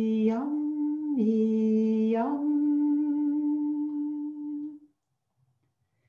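A woman singing wordless 'e-yum' sound-code syllables, stepping between two close pitches. The last note is held as a long hum that stops about five seconds in.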